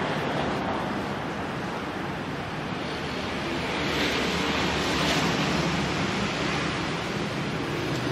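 Steady rushing background noise, swelling slightly about four seconds in.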